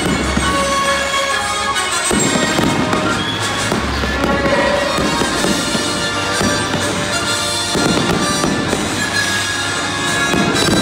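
Fireworks display: ground fountains hissing and aerial shells bursting with crackling pops and low booms, while music plays loudly throughout.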